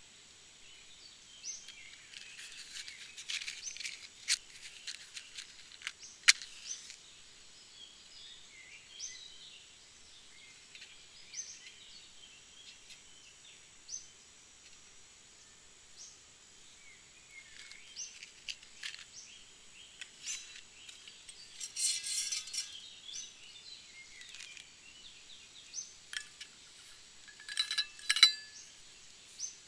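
Wooden matches scraped against a matchbox striker to light tealight candles, heard as scratchy bursts with a sharp flare-up click, while a small bird chirps every few seconds. A few clicks near the end as a metal water bottle is picked up.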